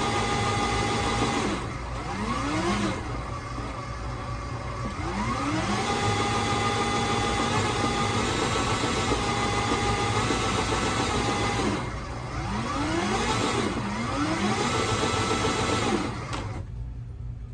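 EGO LM2100sp battery lawn mower's electric motor and blade running with a whine that sags in speed and climbs back twice as the handle is wiggled, then stops near the end. The speed changes are the sign of a broken wire in the handle's wiring harness.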